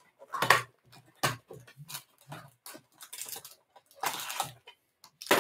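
Cardboard trading-card hanger box being handled and opened by hand: a string of short clicks and rustles from the flap and box, with a longer rustle about four seconds in as the flap is pulled open.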